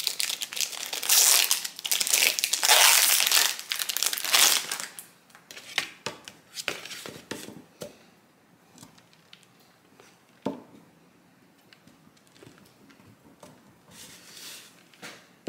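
Plastic wrapping on a block of cheddar cheese crinkling and tearing as it is opened, loudest for the first four or five seconds. After that come faint scrapes and taps as the cheese is grated on a handheld flat grater, with one sharp click about ten and a half seconds in.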